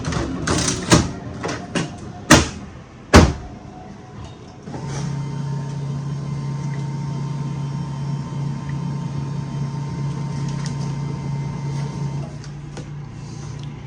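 Canon imageCLASS MF221d laser printer: its toner cartridge is pushed into place with clicks and knocks, ending in a loud knock about three seconds in. Then the printer's motors run with a steady hum and a faint whine for about seven seconds, as the printer starts up with the cartridge back in, and stop near the end.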